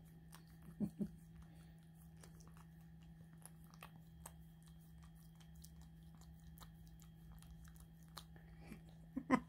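Faint, wet clicking and smacking of a small dog licking a person's face, scattered throughout over a steady low hum. Two short soft vocal sounds come about a second in.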